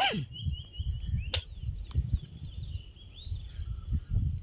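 Wind buffeting the microphone in gusts, with a bird in the background giving a run of short, quick chirps. A single sharp click comes a little over a second in.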